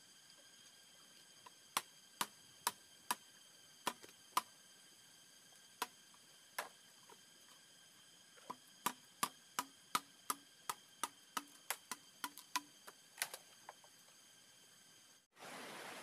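A knife chopping into bamboo culms, each blow a sharp knock: about two a second at first, then a faster run of about three a second, over a faint steady high whine. Near the end it cuts to a steady rush of stream water.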